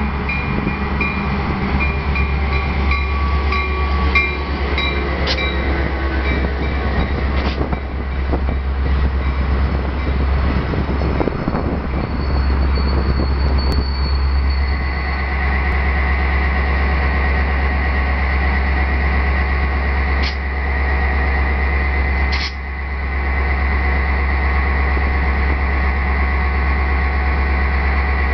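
Metra diesel commuter train rolling in past the platform: the locomotive's engine rumbling steadily under the rolling of the bi-level cars and the clatter of the wheels, with a few sharp knocks. A steady high squeal sets in about halfway through.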